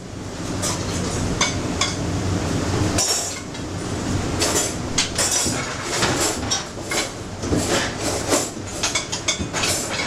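Kitchen clatter during plating: metal spoons, pans and pots clinking and knocking against china plates and steel, many quick sharp clinks over a steady low hum.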